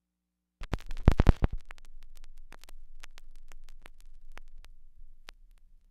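Turntable stylus set down on a vinyl record: a quick cluster of loud clicks about half a second in, then the lead-in groove's surface noise, a low rumble with scattered pops and crackles.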